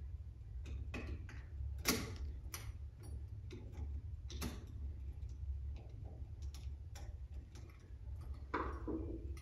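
Irregular small metallic clicks and ticks of a flat-head screwdriver working screws out of the control-knob indicator plate on a hydraulic metering pump, over a steady low hum.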